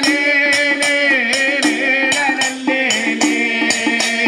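Music accompanying a ritual dance: a melody of long held and bending notes over an even beat of sharp rattle-like strokes, about two and a half a second.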